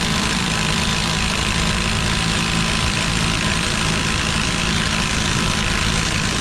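A brushless cordless 1/2-inch impact wrench hammers steadily in reverse on an over-tightened bolt without breaking it loose.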